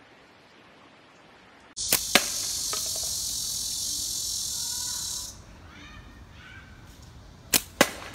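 Slingshot shots: twice, a pair of sharp cracks a fraction of a second apart, first about two seconds in and again near the end. A loud steady high hiss runs between them and cuts off abruptly about five seconds in.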